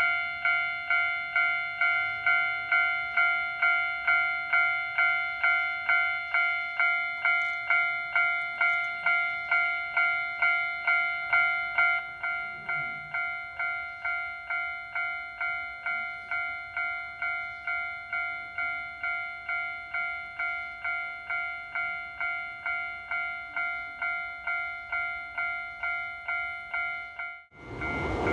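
Japanese railway level-crossing warning alarm ringing, a repeated clanging tone at about two strikes a second, which steps down in volume about halfway through. It cuts off near the end as the rushing noise of a passing train takes over.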